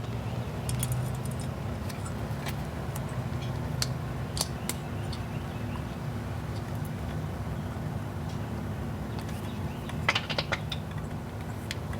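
Small metal clicks and rattles of screws and a metal mounting bracket being handled and fitted over a steady low hum, with a quick cluster of clicks about ten seconds in.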